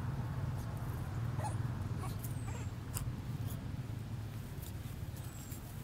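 Baby long-tailed macaque giving a few faint, short distress whimpers while an adult bites and pins it, over a steady low rumble.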